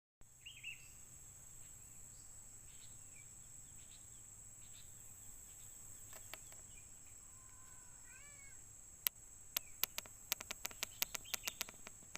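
Wild birds calling: a short meow-like call near the start, then scattered brief notes and a quick series of rising notes about eight seconds in. In the last three seconds comes a fast run of sharp clicks, about five a second. A steady high-pitched whine runs underneath throughout.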